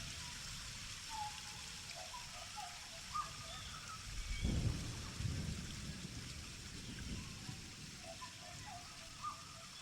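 Steady rain falling, with a low roll of thunder swelling about four seconds in and fading over the next couple of seconds.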